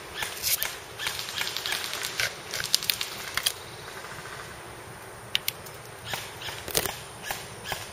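Airsoft guns firing in rapid runs of sharp clicks for the first few seconds, then single scattered shots.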